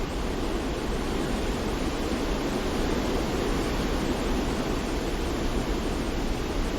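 Steady, unbroken rushing noise from a sleep noise track, heaviest in the low and middle range, like wind and surf, with no changes or separate events.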